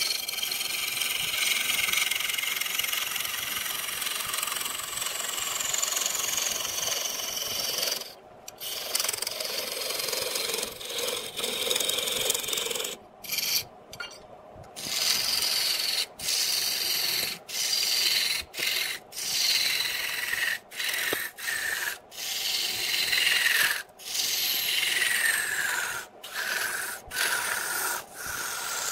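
A lathe gouge cuts into a spinning wooden blank, peeling off shavings with a steady rasping hiss. The cutting stops and starts briefly a few times early on, then breaks into short passes with quick pauses about once a second in the second half.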